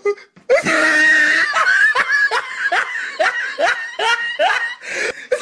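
A person laughing hard: a long run of loud laughs, about two a second, starting just after a brief pause.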